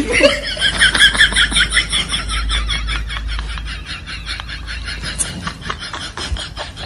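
Comedy laughing sound effect: a fast, high-pitched, chattering laugh, louder at first and then fading.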